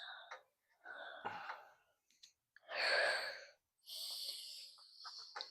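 Several breathy exhales or sighs from a person close to the microphone, the loudest about three seconds in.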